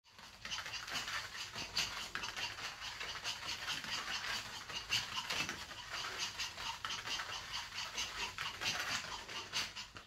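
Small dogs moving about close by, a quick soft patter about three or four times a second.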